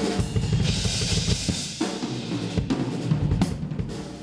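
A drum kit being played: quick, dense hits on drums, with a cymbal washing over the first couple of seconds.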